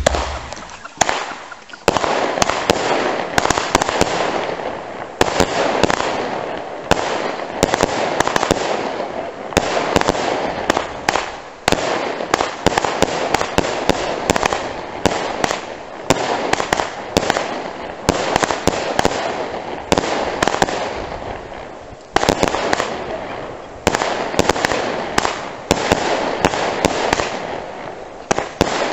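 Weco Reno consumer firework battery (cake) firing shot after shot. Sharp reports come about once or twice a second from about a second in, with a steady hiss between them.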